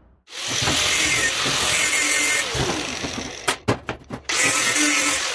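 A handheld power tool running in two loud bursts, with a few sharp metal knocks between them.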